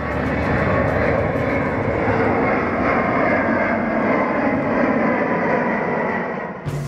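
Twin-engine jet airliner passing low overhead, a steady jet engine roar that eases off near the end.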